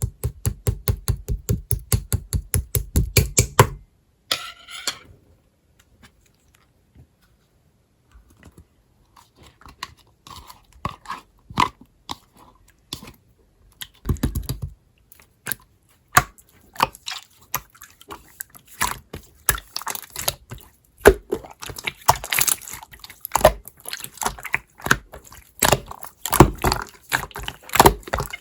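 Slime being handled by hand. A fast, even run of taps for the first four seconds, then a quiet stretch, then sticky squishing, popping and crackling clicks that grow denser and louder toward the end.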